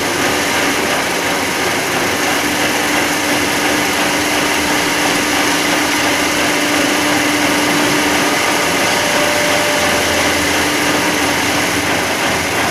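Hydraulic hopper pan mixer running, its motor and hydraulic pump giving a steady machine hum as the hydraulic ram lowers the skip hopper.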